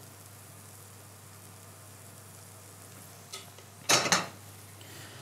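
A metal spoon scraping the softened peppers and onions around a frying pan: a short, loud scrape about four seconds in, after a small click, over a faint steady hiss.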